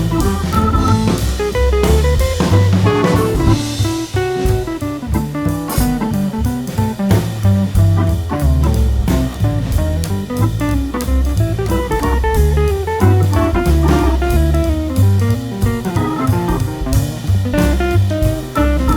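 Instrumental background music with a steady beat and a moving melody line.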